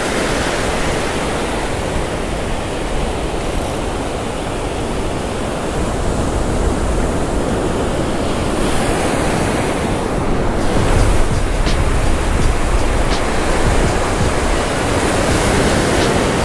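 Ocean surf washing in and breaking around the angler's legs: a steady, loud rush of water, with a low rumble of wind on the microphone.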